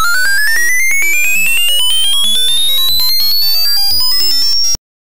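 The Abraxas DOS virus's payload noise: an extremely loud, buzzy electronic tone that sweeps steadily upward in pitch over a jumble of other tones, then cuts off suddenly near the end.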